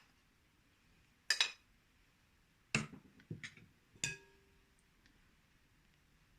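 Kitchen utensils clinking and knocking against a mixing bowl while cocoa and flour are added: about five short, sharp clinks over a few seconds, the last one ringing briefly.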